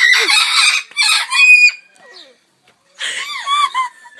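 Talking birds calling loudly in a run of calls with bending pitch. The calls drop away for about a second midway, with only faint calls, then start up loud again.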